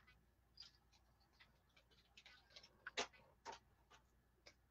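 Near silence with a few faint, scattered clicks and light taps, the loudest two about three seconds in.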